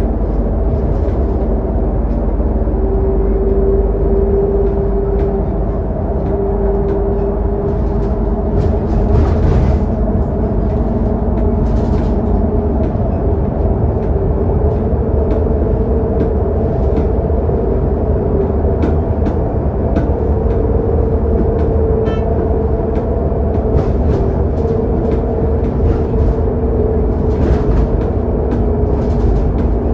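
Scania K280UD double-decker bus cruising at highway speed, heard from inside the lower deck: a steady engine and drivetrain drone with a whine that wavers slightly in pitch, over low road and tyre rumble.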